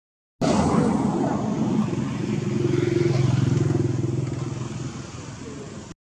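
Motorcycle engine running close by, loudest around the middle of the stretch and fading toward the end.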